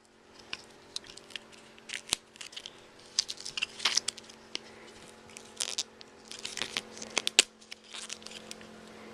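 Protective plastic film being peeled off a new iPod Touch 3rd generation: irregular crinkling and crackling in short bursts, with small clicks, over a faint steady hum.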